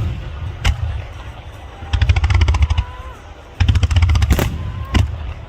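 Fireworks going off in a rapid salvo: a single sharp bang about a second in and another near the end, with two runs of fast-repeating reports in between, each about a second long.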